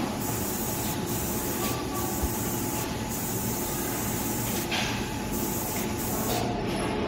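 Steady factory machinery noise: a low hum with a faint steady tone, and a high hiss that cuts in and out several times.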